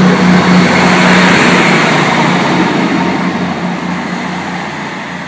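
Class 158 diesel multiple unit pulling away from the platform, its underfloor diesel engines running under power with a steady low hum over the rumble of the train, growing steadily fainter as it draws away.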